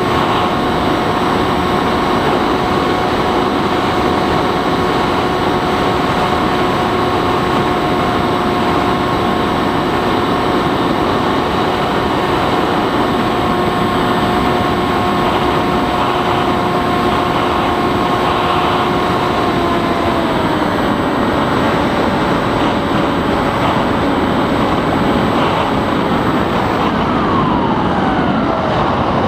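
Bixler 3 RC plane's brushless electric motor and pusher propeller whining at steady throttle over loud wind rush. About twenty seconds in the pitch steps down as the throttle is eased, and near the end a falling whine follows as the motor is throttled back further.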